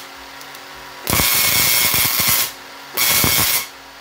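Large Tesla coil firing in two bursts of loud, buzzing spark discharge into the air: the first starts about a second in and lasts well over a second, the second is shorter and comes about three seconds in.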